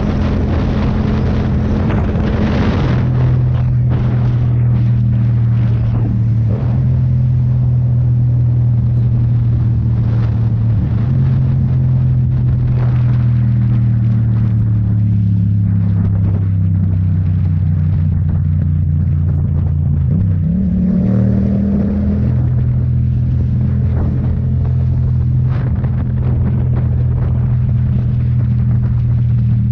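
Motorcycle engine running at road speed, with wind rushing over the microphone. The engine note drifts slowly lower through the middle and changes pitch again about twenty seconds in.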